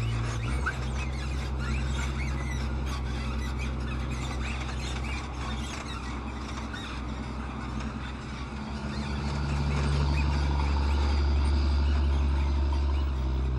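VAB wheeled armoured personnel carrier driving over rough ground, its diesel engine running steadily with many short high squeaks over it. The engine grows louder about nine seconds in.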